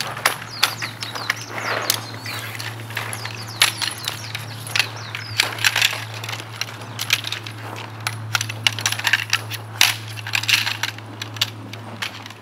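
Shock-corded tent pole sections clicking and clinking against each other as they are pulled apart and folded, in quick irregular runs.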